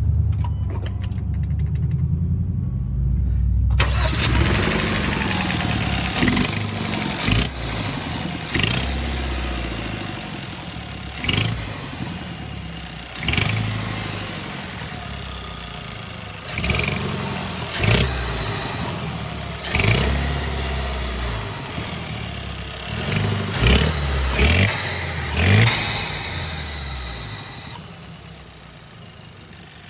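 2014 Hyundai Sonata 2.0T turbocharged four-cylinder engine running and being revved in a dozen or so short blips, each rising and falling in pitch; the sound turns much brighter and harsher about four seconds in. The noise is an exhaust leak, which the owner had first taken for a failing turbo.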